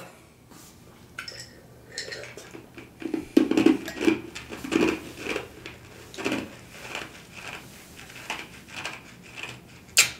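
Close-miked mouth sounds of someone chewing food with the mouth closed: a slow run of soft, wet chews about twice a second, ending in a sharp lip smack.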